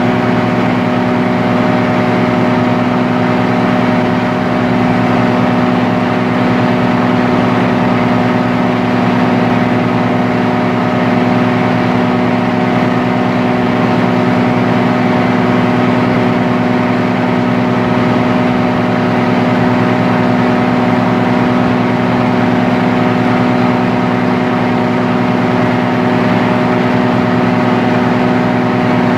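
The diesel engine of a stationary Hitachi RHN diesel railcar runs at raised revs with a loud, steady exhaust drone. It is running up to charge the air brake system for a brake test.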